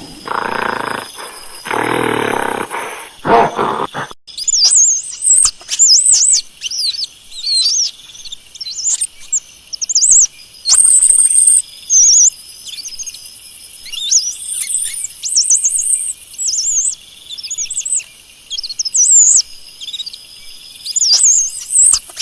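Monkeys calling. For the first few seconds there are harsh, noisy calls. Then come many rapid high-pitched chirps and squeaks that swoop up and down, with one held whistle about ten seconds in.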